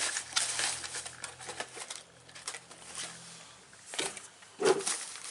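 Handling noise as a chainsaw cylinder is put back in its box: rustling packaging and light clicks, then two sharper knocks, about four seconds in and near the end.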